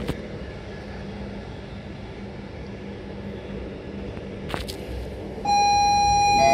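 Belgian Railways classic EMU (AM Classique) running, a steady rumble with two sharp clicks. About a second before the end a loud steady chime tone starts, then steps down to a lower note: the onboard public-address chime that comes before a passenger announcement.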